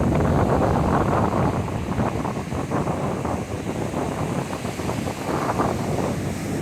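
Strong wind buffeting the microphone, with ocean surf rushing underneath.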